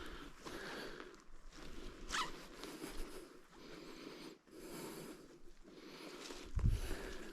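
Repeated rustling scrapes in uneven strokes, every half second to a second, from a hiker moving through the forest. A short, high, rising sound comes about two seconds in.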